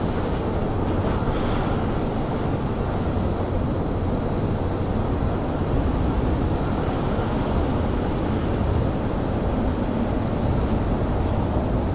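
Steady low rumble of a train in a railyard, with a faint steady high whine above it. There is a brief high squeak right at the start.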